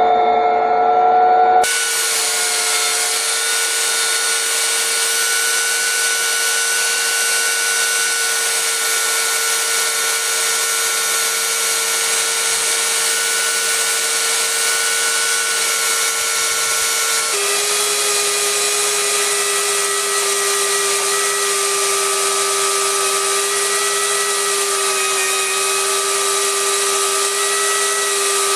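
Electric chainsaw in an Alaskan chainsaw mill ripping a log lengthwise, its motor running with a steady whine under load. The sound changes abruptly just under two seconds in, and the whine's pitch drops slightly about seventeen seconds in.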